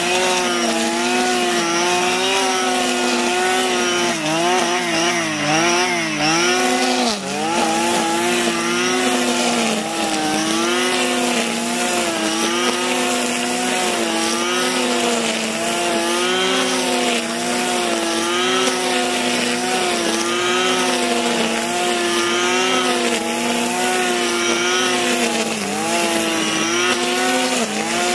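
Stihl petrol brushcutter running at high revs while mowing tall, thick grass. The engine pitch keeps wavering as the cutting head is loaded by the grass and picks up again, sagging most deeply about seven seconds in.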